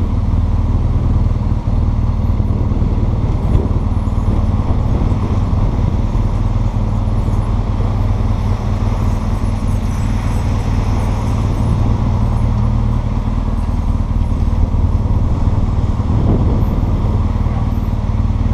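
Motorcycle engine running steadily at low riding speed, heard from the saddle as a deep, even engine note.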